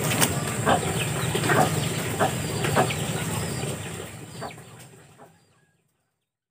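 Short clucking calls from poultry, about six spaced over a few seconds, over a steady low hum; the sound fades out about five seconds in and goes silent.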